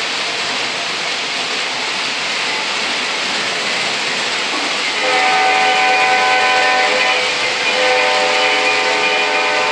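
O gauge model freight trains rolling steadily on three-rail track, and from about halfway two long multi-tone horn blasts from a model diesel locomotive's electronic sound system.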